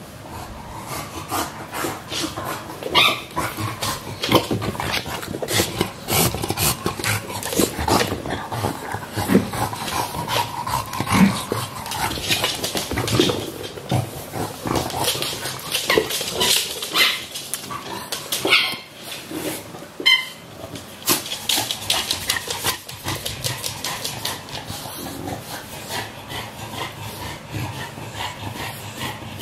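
English bulldog playing with a rubber hamburger toy: the dog's own sounds mixed with many short knocks and clicks from the toy and its paws on the floor mats.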